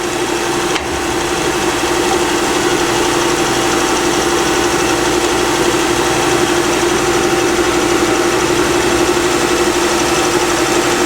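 Myford MG12-M cylindrical grinder running: its 3 hp grinding wheel spindle motor and 12-inch wheel spinning, giving a steady, even hum with a clear pitch.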